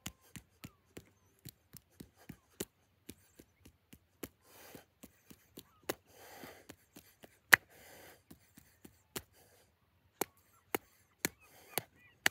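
A run of sharp hand claps and snaps at an uneven rhythm, about two to three a second. A few soft rushes of breath-like noise come around the middle.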